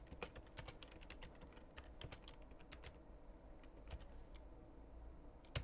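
Computer keyboard being typed on: faint, irregular keystrokes entering short commands, with one sharper keystroke near the end.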